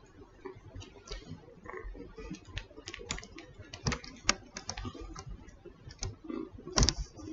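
Kitten suckling on a human earlobe, close to the microphone: an irregular run of small clicking and smacking sounds with no steady rhythm, and a louder click near the end.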